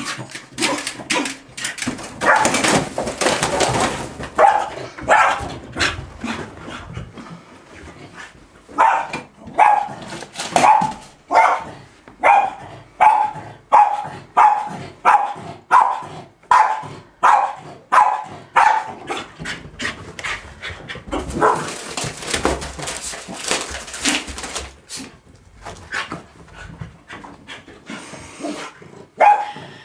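West Highland White Terrier barking excitedly at the mail, with a long regular run of sharp barks at about two a second through the middle and noisier, denser stretches before and after.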